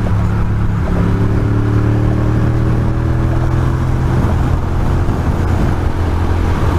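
Ducati Monster's L-twin engine running at highway speed, its note climbing slowly over the first few seconds and then holding steady, under a constant rush of wind noise.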